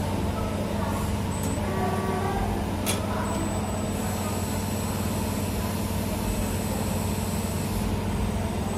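CNC camless wire forming and bending machine running as it bends flat copper wire: a steady motor hum, with a faint high whine through the middle and one sharp click about three seconds in.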